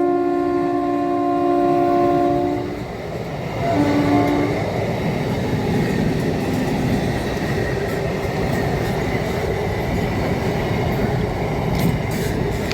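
Train horn sounding a long two-note blast that ends about three seconds in, then a short second blast about a second later. The steady noise of the train running past on the rails follows.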